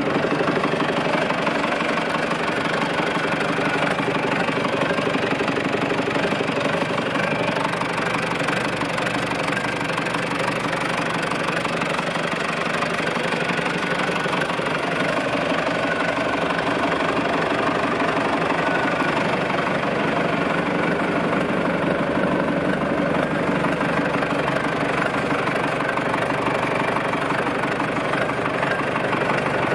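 1988 John Deere 2650 4WD tractor's diesel engine idling steadily.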